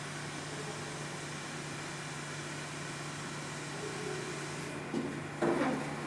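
Steady machine hum of an Otis elevator as the car arrives at the landing, then a knock about five seconds in and the sliding doors starting to open.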